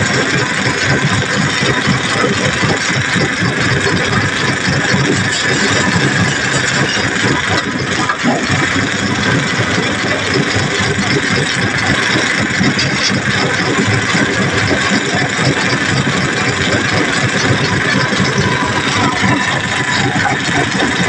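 A motor vehicle engine running steadily and loudly, with no clear revving or stopping.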